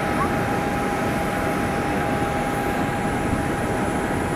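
Jet airliner noise: a steady, unchanging roar with a constant high whine running through it.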